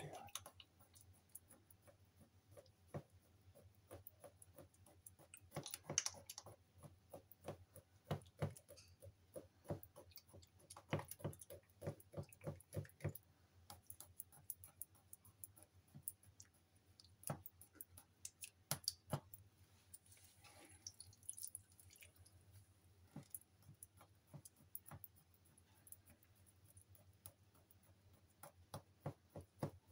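A wooden skewer repeatedly jabbed into a raw turkey fillet on a glass cutting board: faint, irregular clicks and ticks, coming in quick runs of several a second around the middle.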